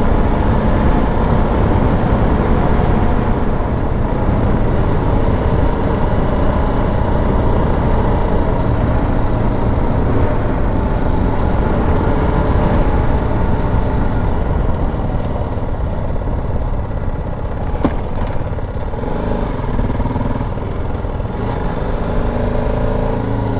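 Motorcycle engine running steadily while riding at low speed, with wind noise on the microphone; the engine eases off a little about halfway through.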